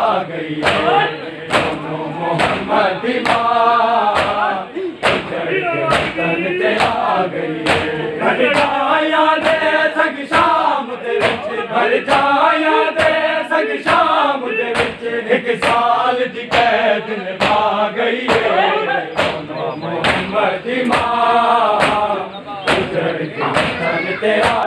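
A group of men chanting a Shia mourning lament (noha) in unison. Sharp, evenly timed chest-beating slaps (matam), about one and a half to two a second, keep the beat.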